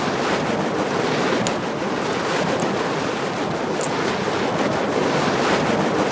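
Steady, loud rushing noise, with a few faint high ticks.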